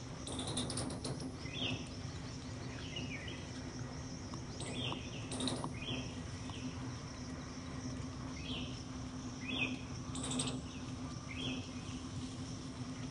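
A bird calling in the forest: short downward chirps repeated about every one to two seconds, over a steady low hum, with a few brief scratchy noises.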